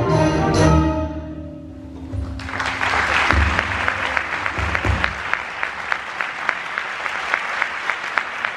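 An orchestra of strings and trumpet holds its closing chord, which fades away within about two seconds. Then an audience breaks into applause and keeps clapping.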